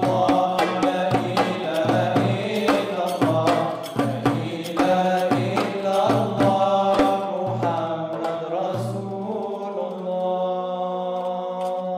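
Male vocal ensemble singing an Islamic devotional song (nasheed), accompanied by regular strokes on hand-held frame drums. Near the end the drumming stops and the voices hold a long final note.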